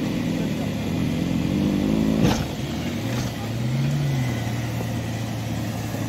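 4x4 engine revving under load during a strap tow through deep snow. Its pitch climbs over the first two seconds, drops after a sharp click, rises and falls briefly again, then runs steadily.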